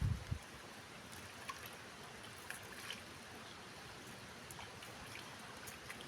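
River water running in a steady rush, with a low thump at the very start and a few faint ticks scattered through it.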